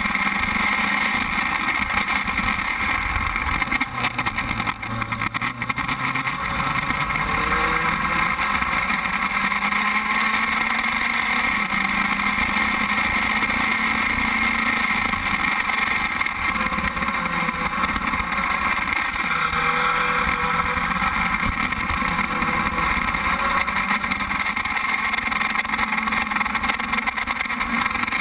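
FS2.0 formula race car's engine running steadily, picked up by the car's onboard camera, its pitch wavering slightly now and then. A brief dip in loudness comes about four seconds in.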